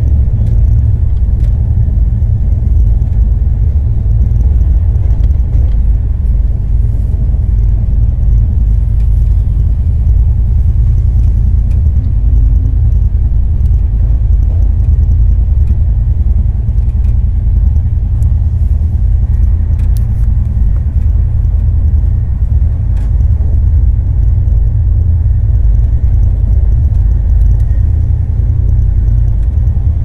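Passenger train running, heard from inside the carriage: a loud, steady low rumble with a few faint ticks.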